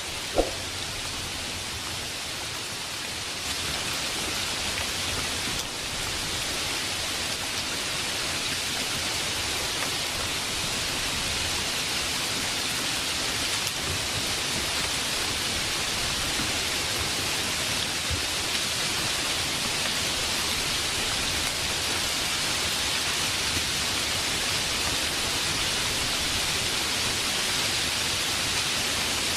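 Steady rain falling, an even hiss of many drops, getting a little louder a few seconds in. A single sharp click sounds about half a second in.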